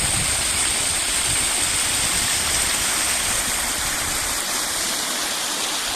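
River water rushing steadily over rocks, an even hiss of flowing water.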